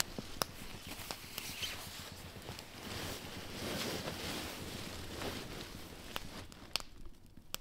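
Nylon sleeping bag rustling as someone shifts around inside it, with a few sharp pops near the end.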